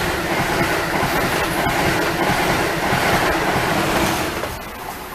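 Amtrak Acela Express electric trainset passing the platform at speed: a loud rush of wheels on rail and air with a few sharp wheel clicks, dropping off about four and a half seconds in as the power car goes by.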